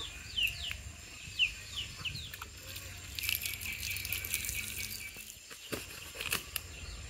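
A chick peeping in short, high notes that fall in pitch, about three a second, then water poured from a cup splashing over a plucked chicken and onto the ground about three seconds in, with a couple of sharp clicks near the end.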